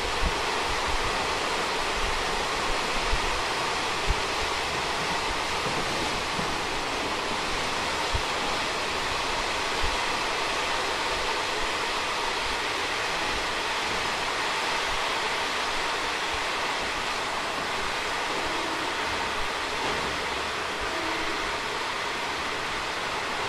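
Steady rushing rumble of an SPK32700-series ordinary passenger coach running on rails at about 60 km/h, most likely inside a tunnel. There are a few short knocks in the first ten seconds, and the noise eases slightly toward the end as the train slows to about 53 km/h.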